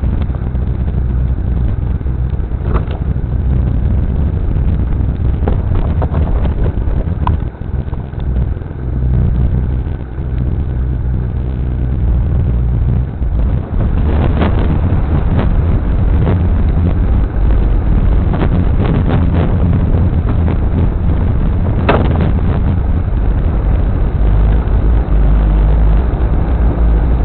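A 4WD's engine and drivetrain running steadily as it drives over a rough bush track, heard from inside the cab on a dashcam. A heavy low rumble carries throughout, with occasional short knocks and rattles from bumps.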